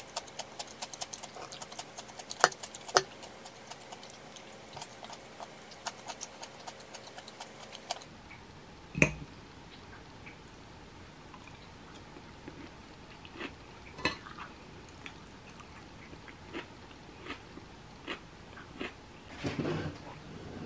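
Metal fork clinking and scraping against a ceramic bowl while eating, over a run of small crackly clicks from chewing. Now and then there is a sharper clink, and near the end a louder clatter as the fork is laid in the bowl and the dishes are moved.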